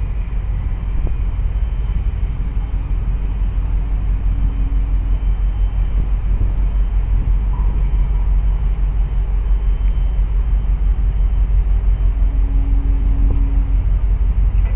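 Steady, loud low rumble heard aboard a moving boat: its engine running as it crosses the harbour, with water and wind noise mixed in.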